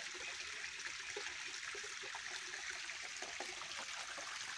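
Shallow water trickling and running down a rocky gully: a steady, even splashing.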